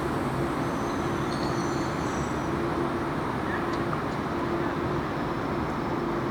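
Passenger train rolling slowly into the station: a steady rumble with a constant hum, and a few faint short high squeaks.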